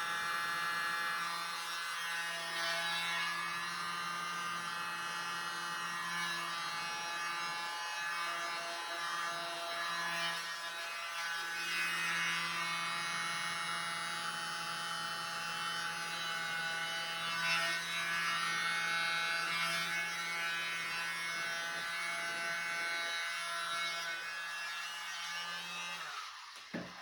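A small electric blower motor running with a steady hum, blowing air over wet acrylic paint, then switched off about a second before the end.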